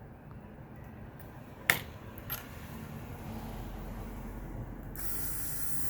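A sharp small click of a precision screwdriver against the phone's metal frame while a tiny screw is being worked into place, with a fainter click just after. A steady hiss starts near the end.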